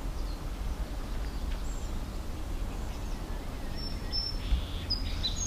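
Steady low background hum with scattered short, high, bird-like chirps and whistles, several of them clustered from about four to five seconds in.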